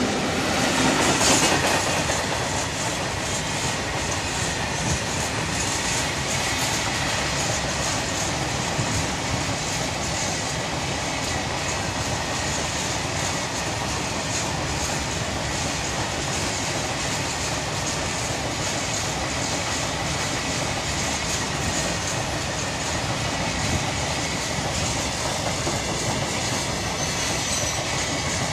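Freight train of BCCW covered hopper wagons passing close by, the steady heavy noise of many steel wheels running on the rails, a little louder in the first two seconds as the end of the locomotive pair goes by.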